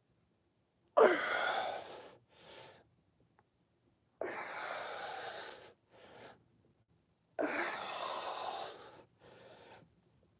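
A man breathing hard through push-ups: three forceful exhales about three seconds apart, each followed by a shorter, quieter inhale.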